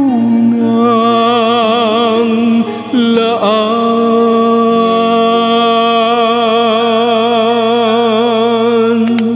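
A man's voice singing into a microphone over a backing track, holding two long notes with a wide, even vibrato: the first for about two and a half seconds, then after a brief slide a second held note to the end.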